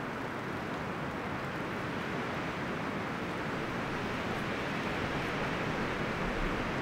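Steady rushing noise with no distinct events, growing slightly louder toward the end.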